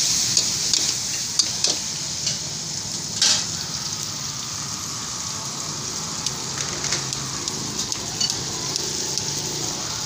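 Beef and vegetables sizzling in a hot wok, with a few scrapes and clicks of the spatula against the pan in the first three or four seconds, then steady sizzling.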